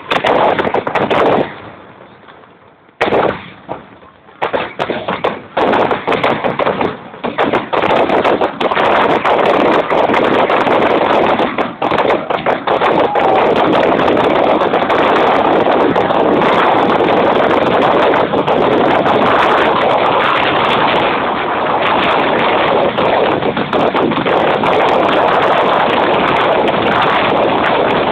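Fireworks exploding: a few separate bangs, a short lull, then the bangs come faster and faster until about eight seconds in they merge into a dense, continuous barrage of rapid explosions and crackling.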